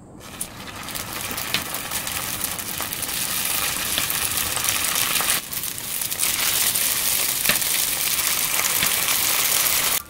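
Rice paper rolls sizzling in plenty of hot cooking oil in a nonstick frying pan, with a few light clicks from the tongs. The sizzle builds over the first second and dips briefly about halfway through.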